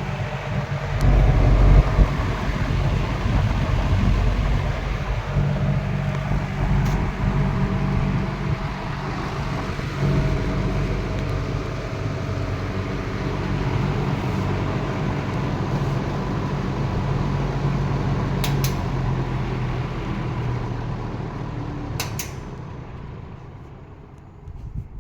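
Late-1960s Eskimo 20-inch two-speed box fan running on high speed, a steady motor hum under a rush of air. Near the end there are a couple of sharp clicks, and then the sound fades away as the fan is switched off and coasts down.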